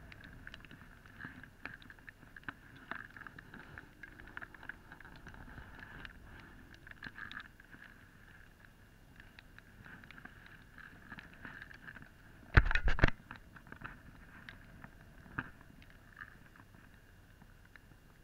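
Muffled handling noise on a body-worn camera: scattered small ticks and rustles with a faint steady high hum underneath, and one loud bump against the camera a little past two-thirds of the way through.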